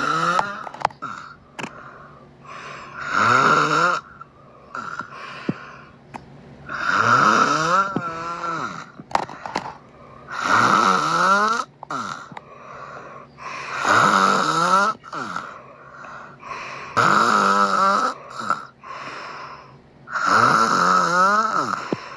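Snoring: seven loud snores, about one every three and a half seconds, each sliding up and then down in pitch, with quieter breathing between them.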